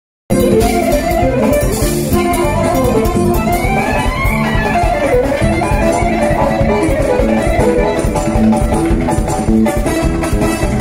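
Live band music from a Bulgarian orkestar: an ornamented lead melody with slides over arranger keyboard and drum kit, with saxophone and clarinet in the line-up. It starts abruptly a moment in.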